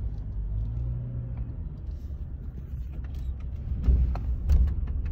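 Low, steady rumble of a car's engine and tyres heard from inside the cabin while driving slowly on a paved road. About four seconds in come two louder low thumps and a few short rattling clicks.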